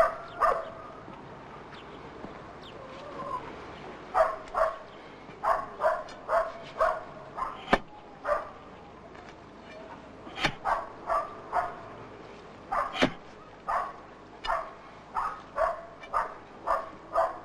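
A dog barking in runs of short barks, about two or three a second, with a pause near the start and another in the middle. A few sharp cracks cut in, the loudest about eight, ten and a half and thirteen seconds in.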